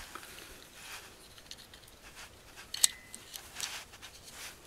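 Small clicks and rustling of hands handling .22 Long Rifle rimfire cartridges and pressing them into a Henry U.S. Survival Rifle (AR-7) magazine, with one sharp metallic click about three seconds in.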